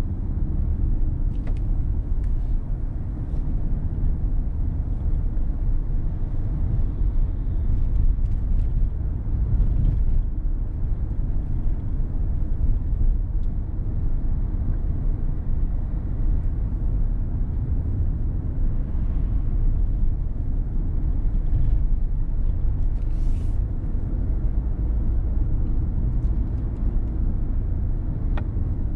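Car driving: a steady low rumble of road and wind noise, with a few faint clicks.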